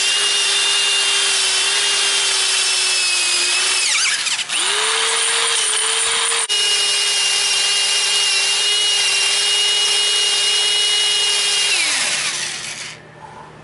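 An electric power tool running at a steady speed with a high whine. It stops about four seconds in and spins back up, cuts out for an instant a couple of seconds later, then winds down with a falling pitch near the end.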